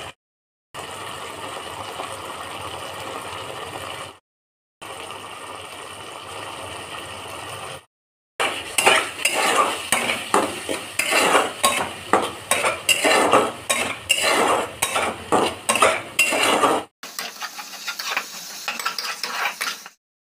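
Onions and spices frying in oil in a metal kadhai, a steady sizzle, then a spatula scraping and knocking rapidly against the pan as the masala is stirred. The sound is broken by short silent edit cuts.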